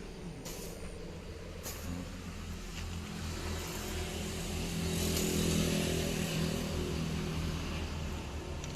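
Motor vehicle engine running steadily with a low hum, swelling louder about five seconds in and then easing off. A few short clicks come in the first two seconds.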